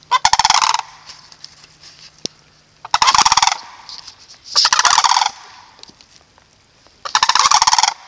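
Sandhill cranes calling: four loud, rattling calls, each just under a second long, spaced a few seconds apart.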